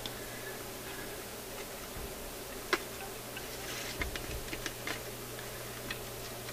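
Sparse light clicks and taps from hands working at a BSR record-changer's platter. There is one sharp click about two and a half seconds in and a few more between four and five seconds, over a low steady hum.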